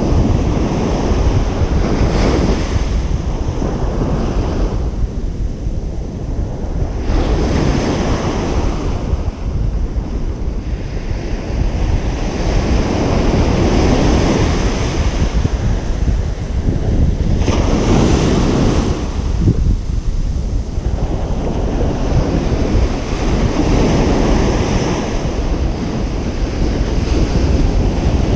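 Ocean surf breaking and washing up a beach, swelling in a new surge about every five seconds. Wind buffets the microphone as a steady low rumble underneath.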